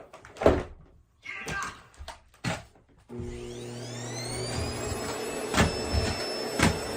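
A few knocks and clunks, then about three seconds in a vacuum cleaner switches on: its motor whine rises as it spins up and settles into a steady run. Two sharp knocks come over the motor near the end.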